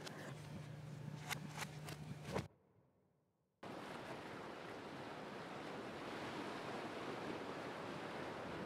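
Kitchen room tone with a steady low hum and a few sharp clicks, cut off abruptly by about a second of silence. Then surf breaking on a sandy beach, a steady wash of waves.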